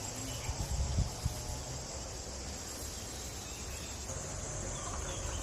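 A steady, high-pitched insect chorus, with a few low thumps about a second in.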